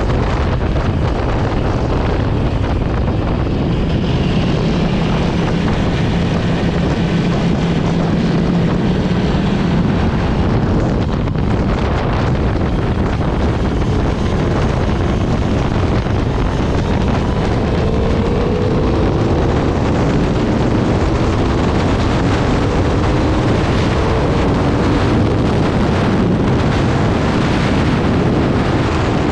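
Aprilia RSV4 RF's V4 engine running hard at track speed, mixed with heavy wind noise on the microphone. The engine note rises in several climbs through the second half as the bike accelerates.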